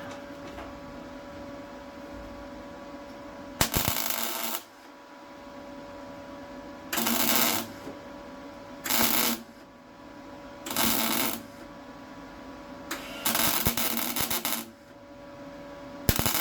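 Welder tacking a steel car-body repair piece in six short crackling bursts, each about half a second to a second and a half long, with a steady hum of the welder between them.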